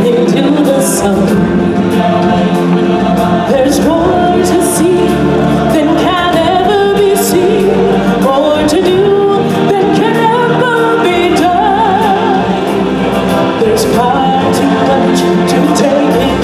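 A choir of voices singing together over music, with long held notes that waver in vibrato.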